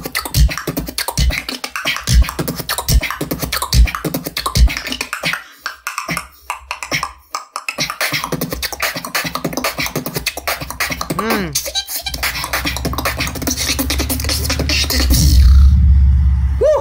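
Solo human beatbox: deep kick-drum beats about every 0.8 s over snares and hi-hats, a sparse break around six seconds in, then fast, dense hi-hat patterns with a brief wavering vocal glide. Near the end a steady low rumble swells and fades as a motorbike passes.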